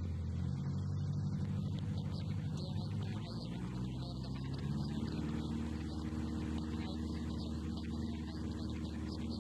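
Light aircraft's piston engine and propeller droning steadily as heard in the cockpit, its note shifting a few seconds in as the power setting changes.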